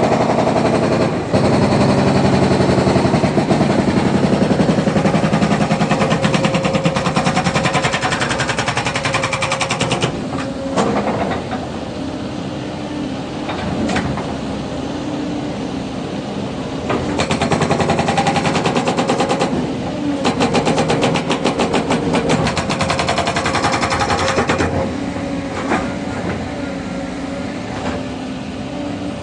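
Hydraulic breaker on a Caterpillar 307 excavator hammering in rapid blows, in two long runs: from about a second in to about ten seconds, and again from about seventeen to twenty-four seconds. Between the runs the excavator's engine keeps running.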